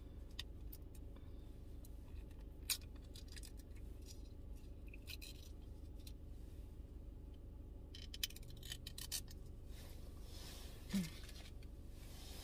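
Faint handling of food wrapping and packets: scattered rustles and scrapes with a couple of sharp clicks, over a low steady hum.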